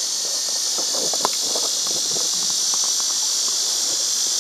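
A steady, high-pitched chorus of insects buzzing, with a few short clicks and taps over it, the sharpest about a second in.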